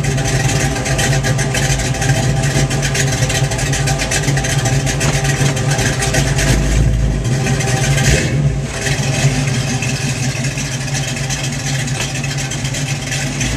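Cammed 5.7 Vortec small-block Chevy V8 running through a 3-inch dual exhaust with X-pipe and chambered Flowmaster 40-style mufflers. The exhaust note stays mostly steady, with a brief change in its low rumble about seven to eight seconds in.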